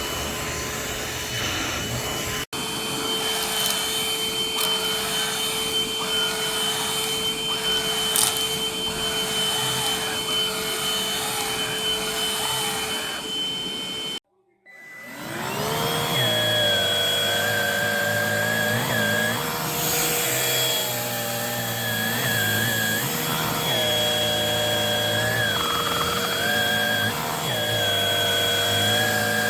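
Bissell Pet Hair Eraser cordless hand vacuum running with a steady whine. About halfway through it cuts out abruptly, then spins back up, and its pitch wavers as it runs.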